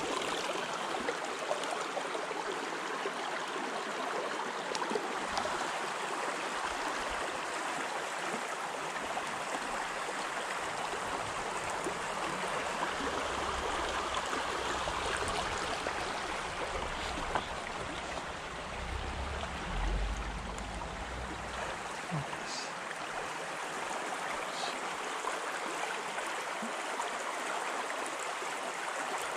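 Steady rushing of a clear mountain stream flowing over rocks, with a low rumble that swells and fades midway through.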